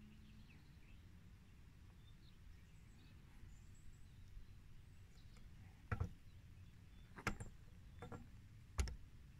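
Faint outdoor background noise, with four sharp clicks in the second half.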